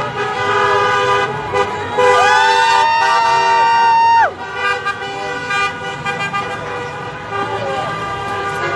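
Several vehicle horns honking at once, held steadily, with one louder long horn blast from about two seconds in that stops sharply after about two seconds.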